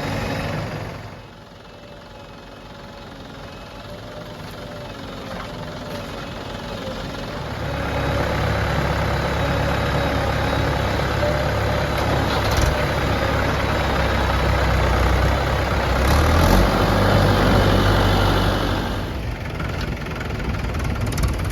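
Diesel engines of a backhoe loader and farm tractors at work. The sound drops off about a second in, builds gradually, grows much louder and deeper from about eight seconds, and dips briefly near the end.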